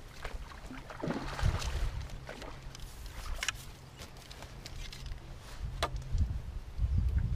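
A carbon fishing pole being shipped back and a fish landed: sharp clicks and knocks of pole sections and landing-net handle, with water splashing and rumbling handling noise close to the microphone, loudest about a second in and near the end. A faint steady low hum runs underneath.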